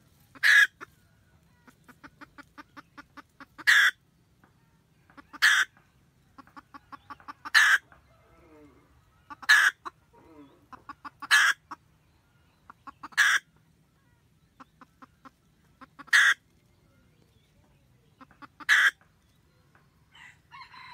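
Red junglefowl hen cackling: runs of quick, soft clucks, each ending in a loud sharp 'tác' note, repeated about every two seconds. This is the hen's call to the rooster from near her nest.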